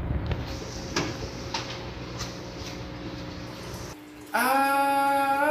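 Small submersible aquarium pump running as a gravel-vacuum powerhead, with water churning and a few light knocks. About four seconds in it cuts off and a loud held musical note with rich overtones starts, bending in pitch near the end.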